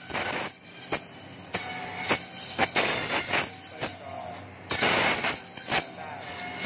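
Bamboo satay-skewer slicer-planer machine running, its rollers and blades cutting bamboo strips, with repeated loud bursts of cutting noise over a steady machine whine as the strips pass through.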